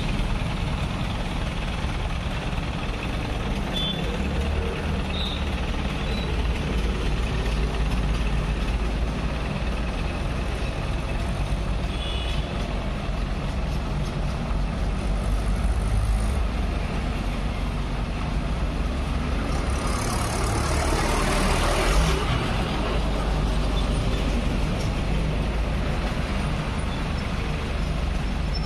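Street traffic with a heavy diesel vehicle engine running steadily. A louder rushing swell about two-thirds of the way through sounds like a vehicle passing close.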